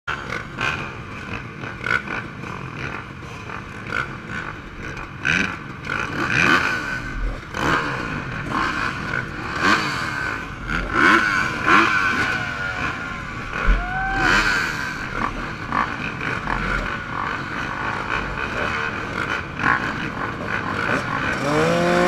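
Several motocross bike engines idling and blipping their throttles together at a starting gate, their pitches rising and falling and overlapping. Near the end one engine revs up sharply and holds high.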